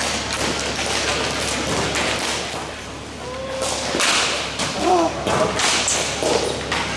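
Ball hockey warm-up shots: sharp slaps of hockey sticks striking the ball, again and again, with thuds of impact. The slaps come thickest about four to five seconds in.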